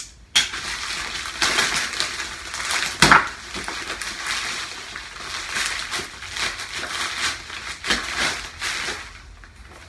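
A mailing bag being opened and handled, rustling and crinkling throughout, with a sharp louder rip or crackle about three seconds in.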